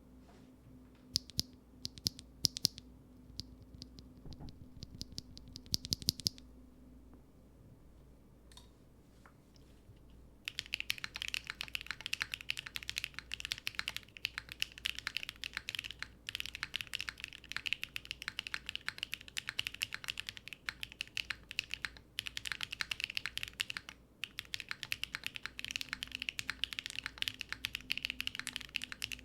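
Mechanical keyboard typing: factory-lubed XY Studio BSUN Jade Rosales linear switches in a Kohaku keyboard with an aluminium plate, no foam and Keykobo Red Alert keycaps. A few scattered keystrokes in the first six seconds, a pause, then continuous fast typing from about ten seconds in.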